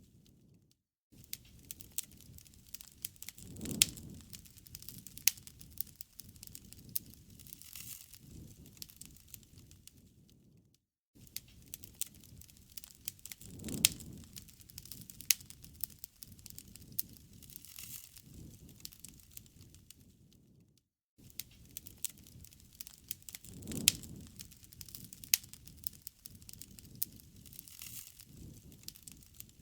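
Wood fire crackling with frequent sharp pops over a low flutter of flames. The same ten-second stretch of fire sound repeats three times, each pass starting after a brief cut-out.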